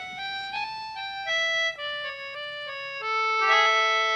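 Instrumental folk interlude on a free-reed instrument: a short melody of held notes stepping up and down, then a sustained chord about three seconds in.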